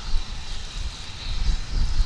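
Wind buffeting the microphone in uneven gusts, over a steady high hiss.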